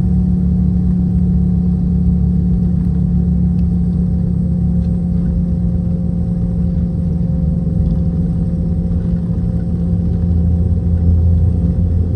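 Boeing 717's tail-mounted Rolls-Royce BR715 turbofan engines running steadily, heard inside the cabin as a constant low drone with a steady tone. The low rumble grows a little near the end.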